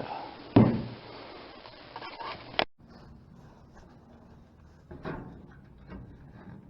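Faint handling noises: a click about half a second in, rustling that cuts off abruptly near three seconds in, then a few soft knocks.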